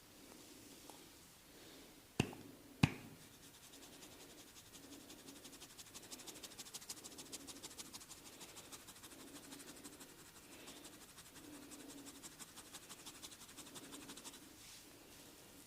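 A barber's hands at work in a head massage: two sharp cracks about two seconds in, roughly half a second apart, then a fast run of light dry taps and rubbing on skin and hair.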